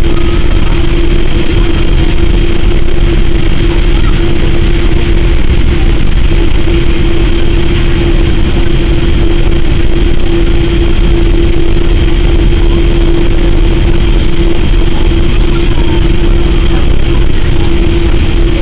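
Cabin noise inside a Boeing 787-8 Dreamliner airliner taxiing with its jet engines at idle: a steady rumble with a constant mid-pitched hum over it.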